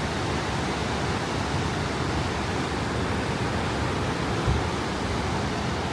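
Steady roar of rushing water from the Niagara River rapids, an even unbroken noise with no separate sounds standing out.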